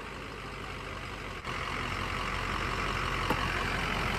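Ford F-350 pickup's engine running at low speed while creeping forward, with a short dip about a second and a half in, after which it grows slowly louder.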